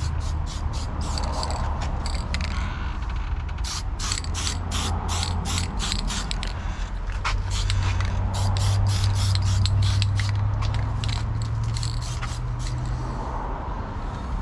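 Stick welder's arc crackling and popping as it welds a reinforcing-bar stop onto a gate, a dense irregular crackle over a steady low hum.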